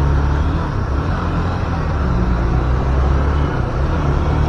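Motorcycle engine running under way, its low note shifting slightly in pitch as the throttle changes, over road noise.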